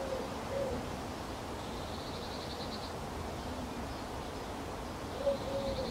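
Garden birdsong over a steady background hiss: a low three-note cooing call, short-long-short, at the start and again near the end, and a fast high trill about two seconds in and again near the end.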